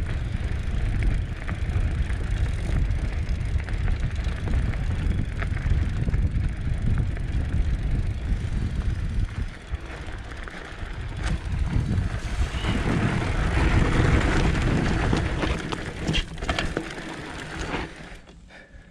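Trek Roscoe 8 hardtail mountain bike riding over a dirt trail: tyres rolling on dirt and gravel with scattered clicks and rattles from the bike, under a heavy rumble of wind on the microphone. It eases for a couple of seconds midway, picks up again, and dies down near the end.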